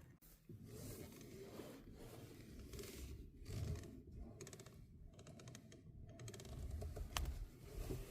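Car steering making an irregular scratchy, rubbing and creaking noise as the wheel is turned, with a sharp click about seven seconds in. It is the noise that the owner plans to have checked as a possible fault.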